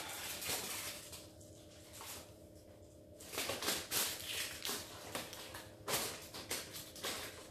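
Scattered light knocks, clicks and rustles of hands handling baking things at a worktop, with a faint steady hum underneath.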